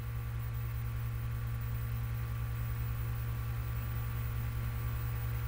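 Steady low electrical hum with a faint hiss, unchanging throughout, with no other events.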